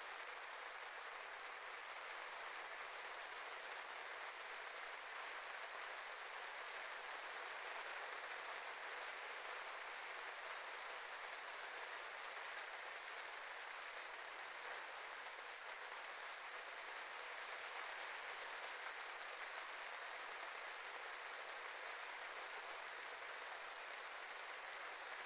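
Steady rain falling, an even hiss with a few sharper drop ticks in the second half.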